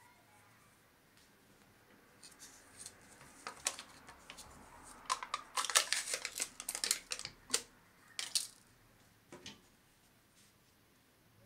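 A plastic yogurt cup being handled: crinkly peeling of its lid, then a spoon clicking and scraping against the cup as yogurt is scooped out. The sharp clicks come thickest in the middle and stop with a few last taps.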